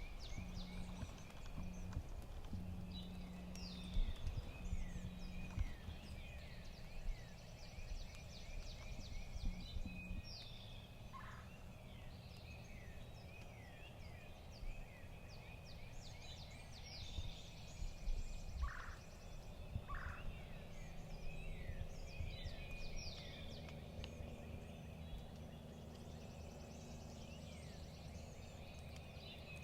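Wild turkey gobbler gobbling a few times, short rattling calls, amid many quick high chirps.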